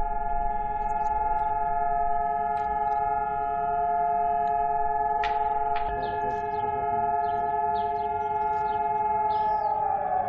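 Civil-defence siren sounding the Holocaust Remembrance Day memorial signal: one long, steady wail of several held tones, which starts to wind down, falling in pitch, near the end.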